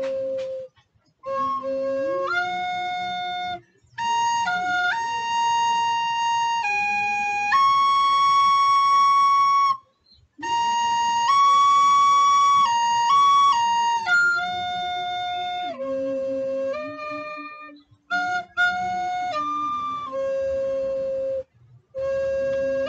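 A recorder plays a slow melody in long held notes, pausing briefly for breath between phrases.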